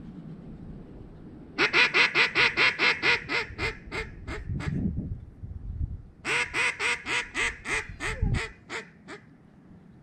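Mallard duck call blown in two long descending hail calls, each a run of about fifteen loud, evenly spaced quacks that grow quieter toward the end.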